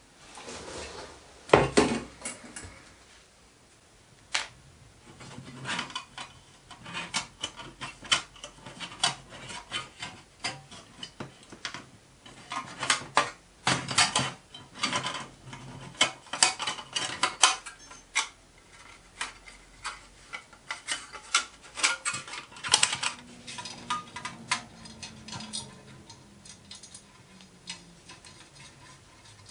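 Irregular metallic clicks, taps and clinks as the brass parts of a small model steam boiler are handled and fitted back together by hand.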